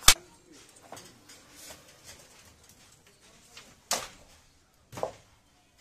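Wooden handloom knocking as it is worked. There is one sharp clack at the start, then a quiet stretch of faint ticks, and two more knocks about four and five seconds in.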